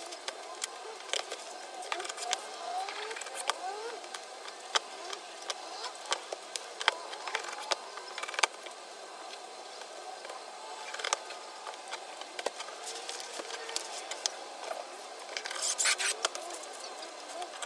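Scissors snipping cloth and fabric being handled on a cutting mat: a scatter of short sharp clicks and rustles. A louder rustle comes about 16 seconds in, as a large sheet of fabric is spread out.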